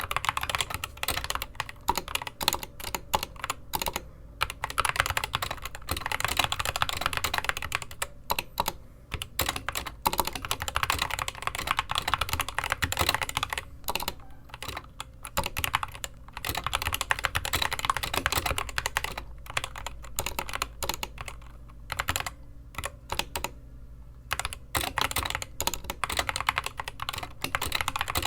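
Typing on a DIERYA DK61 Pro mechanical keyboard with Gateron Red linear switches: fast runs of key clacks, broken by short pauses every few seconds.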